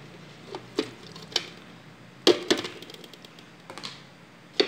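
Plastic tub knocking and tapping against a plastic blender jar as slippery aloe vera gel is tipped and slid into it. A series of light knocks, the loudest a quick cluster about halfway through.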